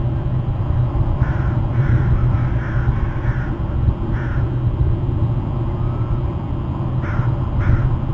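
A crow cawing repeatedly: a quick run of about six caws, a pause, then two more near the end, over a steady low rumble.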